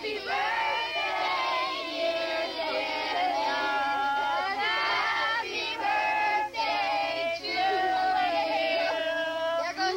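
A group of children's voices at once, high-pitched, calling out and singing over one another, with a few notes held for about a second.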